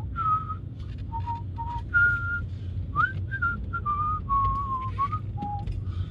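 A man whistling a tune in clear single notes that step and occasionally slide between pitches, over the steady low drone of a Škoda car's engine and road noise inside the cabin.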